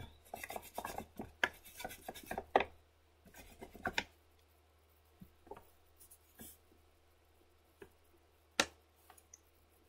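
Pencil scratching on sketchbook paper in quick short strokes, busiest in the first couple of seconds, then thinning to scattered light ticks and taps.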